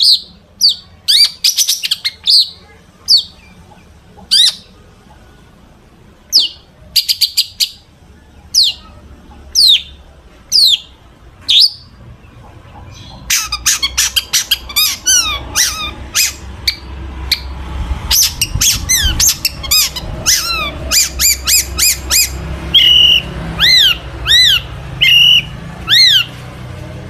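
Long-tailed shrike (cendet) singing: loud, sharp, downward-sliding notes given singly and in short clusters, then about halfway through a faster, denser run of clipped notes over a low rumble.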